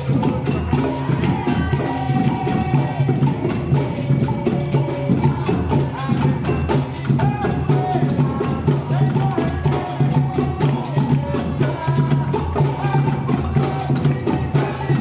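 Percussion group playing a fast, steady rhythm: drums with sharp, wood-block-like clicks at about five strokes a second.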